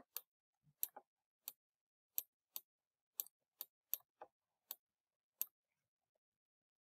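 Light, irregular clicks and taps of a stylus on a pen tablet while letters are handwritten, about a dozen over the first five seconds, then near silence.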